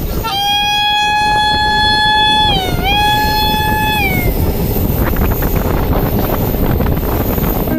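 A WAP-5 electric locomotive's horn sounds one long blast of about four seconds. The pitch dips briefly midway and falls as the horn stops. The train then runs past with a clatter of wheels on the rails.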